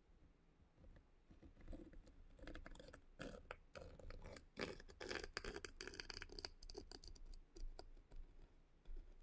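Needle tool scratching as it is drawn through a soft clay slab, cutting around a template edge: a run of short, irregular scratches that starts after about a second and a half.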